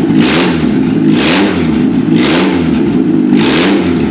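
Car engine with no exhaust fitted, running a little bit loud and being revved in short blips. The pitch rises and falls back four times, about once a second.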